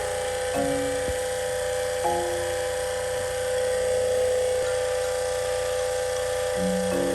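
A small electric motor whining at a steady pitch over a hiss, typical of air-conditioner cleaning equipment running, with background music notes sounding now and then.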